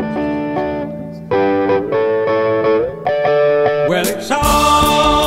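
Electric guitar playing the opening chord riff of the song in short held phrases, each ending with a slide down. About four seconds in, the drums and the rest of the band come in.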